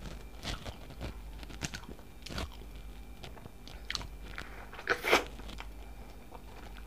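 Close-up eating sounds: a woman chewing with small wet mouth clicks, then, about five seconds in, a louder juicy crunch as she bites into a whole raw tomato.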